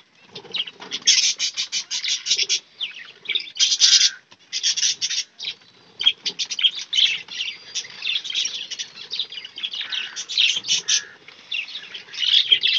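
A flock of caged budgerigars and finches chirping and chattering, with many quick high calls overlapping almost without pause.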